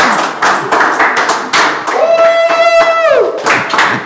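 A group of people clapping in quick, uneven claps. About halfway through, a single long held note like a shout rises over the clapping and drops in pitch as it stops.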